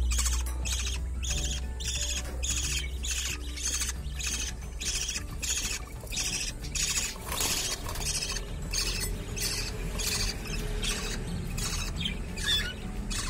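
Budgerigar chicks begging with short, raspy calls repeated in a steady rhythm, about two or three a second, while an adult feeds them.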